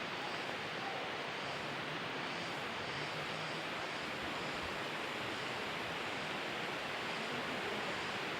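Steady rush of flowing water from the stream and waterfall, an even hiss without any break.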